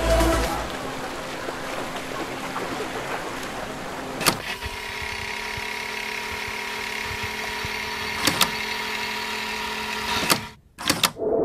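Steady mechanical hum with a constant tone, like a running vehicle, broken by two sharp clicks. It cuts off abruptly near the end.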